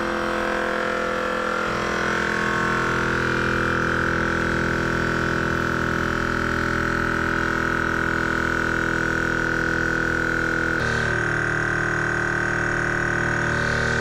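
Air-ride compressor running steadily as it pumps up its 3-gallon air tank, the tank pressure climbing toward the 155 psi cut-off. Its tone shifts slightly about eleven seconds in.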